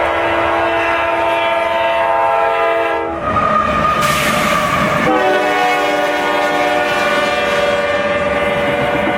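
CSX freight train's locomotive horn sounding as it passes: a chord of several steady notes that cuts out about three seconds in, with a couple of seconds of rushing train noise, then sounds again, held to the end.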